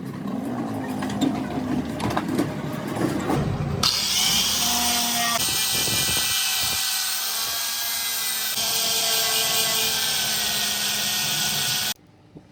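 Power tool grinding steel. About four seconds in it changes abruptly to a louder hissing grind with a faint wavering whine, which cuts off suddenly near the end.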